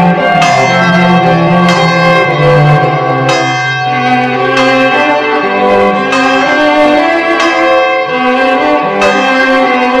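Church bell ringing in repeated strokes, each stroke ringing on into the next.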